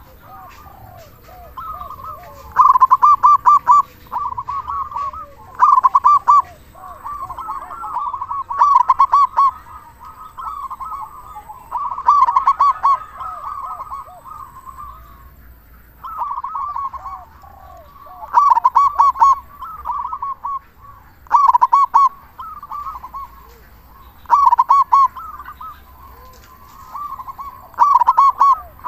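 Local zebra dove (perkutut) singing: loud phrases of rapid, rolling coos about every three seconds, with softer cooing in between.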